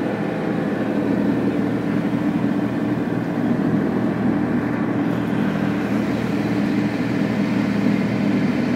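Motorboat engine running steadily under way, a constant drone, with the rush of the hull and wake through the water.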